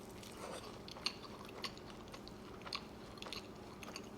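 Close-miked chewing of a crispy vegetable samosa dipped in chicken tikka masala, with irregular small mouth clicks.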